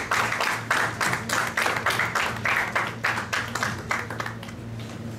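Audience applauding the introduced speaker, dense clapping that thins and dies away about four seconds in.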